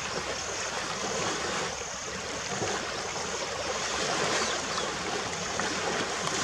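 Steady rush of flowing river water, with a high hiss above it that comes and goes.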